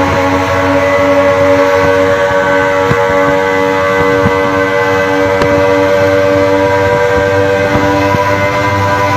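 Suzuki two-stroke pickup engine held at high revs at road speed, a loud, steady drone that holds its pitch throughout.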